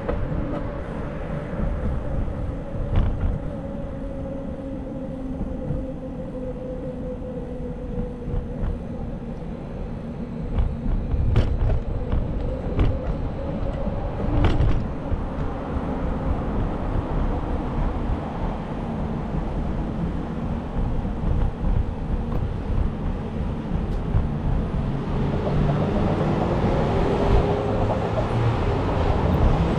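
Street traffic going by under a steady low rumble. One vehicle's drone falls slowly in pitch as it passes over the first several seconds, a few sharp clicks come about midway, and another vehicle grows louder near the end.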